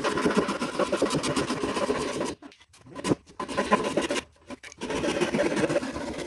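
Hand saw cutting through a wooden leg of a plant stand, with quick back-and-forth rasping strokes. The sawing runs steadily for about two seconds, stops briefly, then picks up again in shorter runs.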